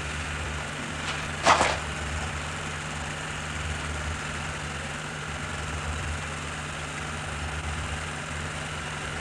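Steady low hum with an even hiss, and a single sharp click about one and a half seconds in.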